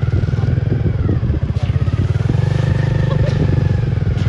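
Tata Safari Storme's diesel engine running at low revs with a rapid, steady low throb as it crawls through mud. A voice is faintly heard over it.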